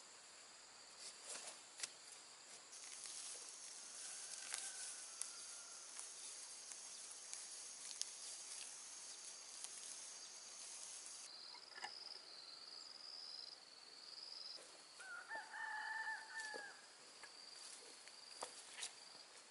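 A rooster crowing once in the distance, a single call of about two seconds in the last third, over a steady high insect trill and a few faint clicks.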